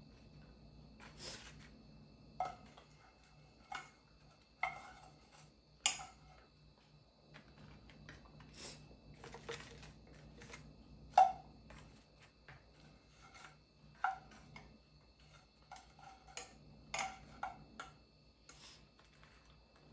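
Chopsticks clinking and scraping against a small saucepan and a plate as fried chicken wings are turned in sauce: scattered light clicks and taps, the sharpest about eleven seconds in, over a faint steady hum.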